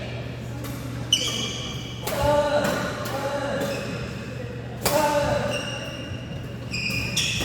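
Badminton play in a large hall: sharp racket strikes on the shuttlecock, with short squeaks from shoes on the court floor and hall echo.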